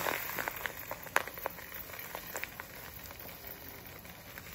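Salt being poured from a plastic bag into a glass bowl: a hiss of grains pattering onto the glass and the growing pile, with scattered sharper ticks, easing off toward the end.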